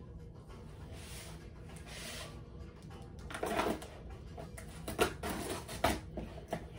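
A USPS Priority Mail shipping box being sliced open and handled: faint scraping along the tape, a louder scratchy rustle about three and a half seconds in, then several sharp clicks and knocks near the end.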